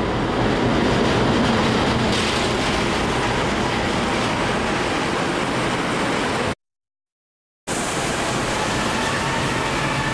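Diesel-electric locomotive hauling a passenger train in along a platform, its engine running as it passes, then the blue passenger carriages rolling by with steady wheel and rail noise. The sound drops out completely for about a second about two-thirds of the way through, then resumes.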